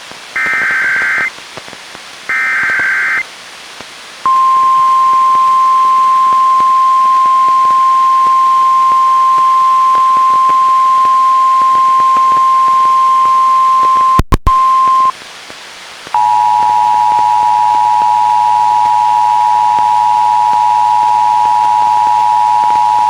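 NOAA Weather Radio emergency alert on a Reecom R-1630 weather radio: the last two of three harsh, buzzing SAME digital header bursts, then the steady 1050 Hz warning alarm tone for about ten seconds, broken by a short crackle near its end. After a second's pause a lower steady tone of two pitches sounding together starts, the EAS attention signal, which opens the Child Abduction Emergency (AMBER Alert) message.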